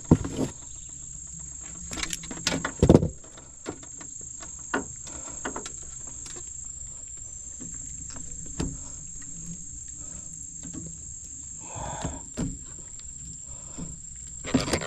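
Insects keep up a steady high-pitched chirring, with scattered clicks and knocks over it; the loudest knocks come just after the start and about three seconds in.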